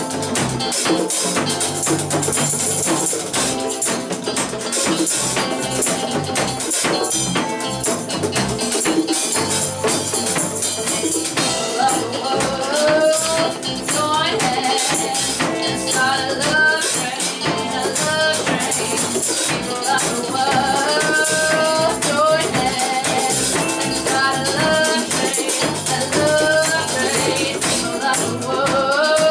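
Small rock band playing live together: drum kit with cymbals, electric guitars, bass guitar and bongos, with a woman's singing voice coming in about twelve seconds in.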